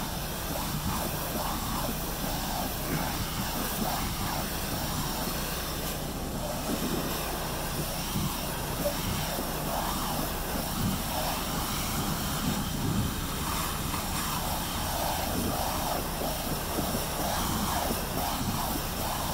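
Pressure washer running steadily, its high-pressure jet hissing and spattering against a truck's rear bumper, over a constant low motor drone.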